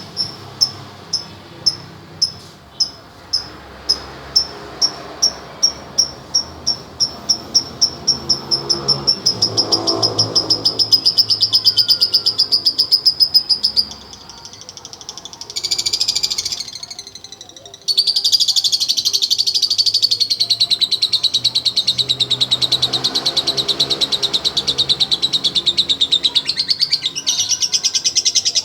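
Lovebird calling: sharp high chirps at about two a second speed up into a fast, continuous chattering trill. After a short break with one brief burst, a long, loud, unbroken trill follows.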